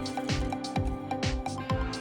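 Background electronic dance music with a steady kick drum, about two beats a second, under held synth notes and crisp hi-hat hits.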